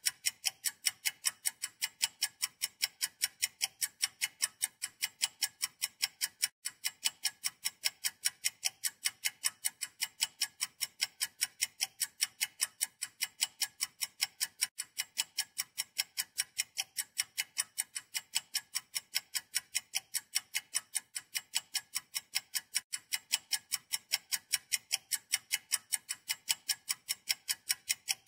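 Steady, perfectly even ticking like a clock, about three sharp high-pitched ticks a second.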